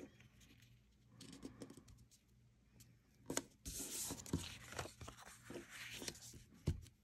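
Quiet rustling and scraping of paper and cardstock being handled while adhesive is applied and a designer-paper piece is pressed into place, with several light clicks and a sharper tap near the end.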